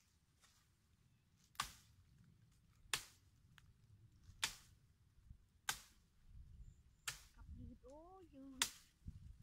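Machete chopping into tree branches: six sharp chops, about one every second and a half. A short rising-and-falling voice comes just before the last chop.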